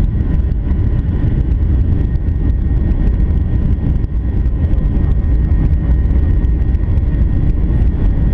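Boeing 737-800 heard from inside the passenger cabin during takeoff: the steady, loud low rumble of its CFM56 jet engines at high power, with a faint steady whine above it.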